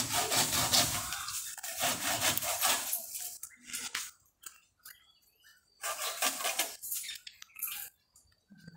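Handsaw cutting through a branch of a kamini (orange jasmine) tree, in two spells of rasping strokes: one at the start and one about six seconds in.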